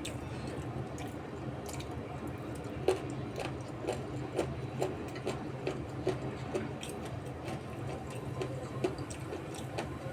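Close-miked eating sounds: wet chewing and mouth smacks, short irregular clicks about one or two a second, over a steady low hum.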